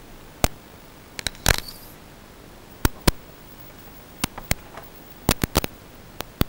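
About fifteen sharp clicks and taps at uneven intervals, some in quick clusters, over a faint steady hiss.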